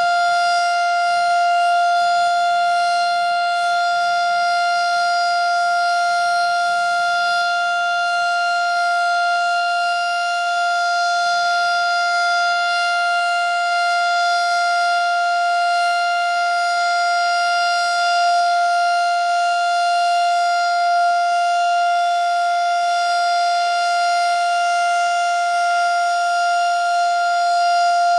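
Darley STH-10 outdoor warning siren sounding a steady, single-pitch tone during its monthly test. The tone is loud, with only slight swells in level.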